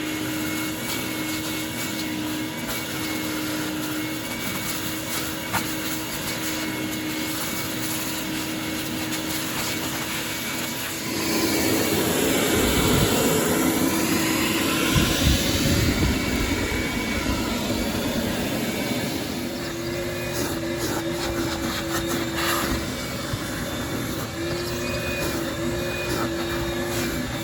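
Shop vacuum running with a steady motor whine. About eleven seconds in it turns louder and rougher for several seconds, and later its whine wavers up and down in pitch.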